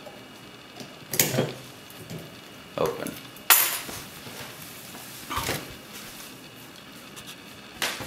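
Metal lockpicking tools and a small lever lock clinking and clanking about five times, the loudest about three and a half seconds in, as they are handled and set down.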